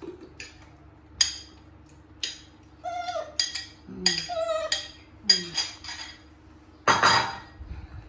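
A metal spoon clinking against a ceramic bowl and plate, about six sharp clinks spread out as noodles are served, with a few short vocal calls in between. A louder half-second rush of noise comes near the end, over a faint steady hum.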